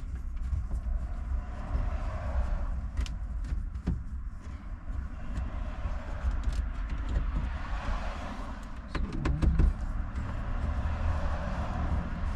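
A steady low rumble with scattered small clicks and knocks as screws are undone from a car's overhead roof trim, with a brief louder clatter about nine seconds in.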